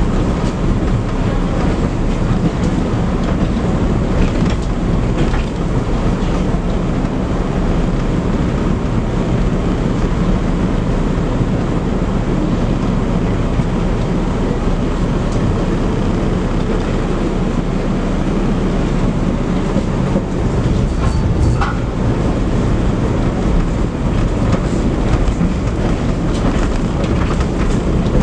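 Tram running along its track, heard from on board: a steady low rumble of the wheels on the rails, with a few faint clicks.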